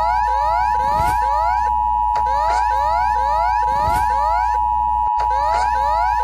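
Emergency Alert System alarm: a steady two-tone attention signal near 900 Hz held without a break, layered with fast, evenly repeating rising siren sweeps.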